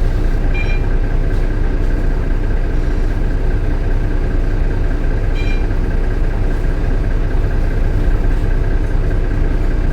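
Bus engine idling steadily under a thin, steady whine, with a short high electronic beep about half a second in and another about five seconds later.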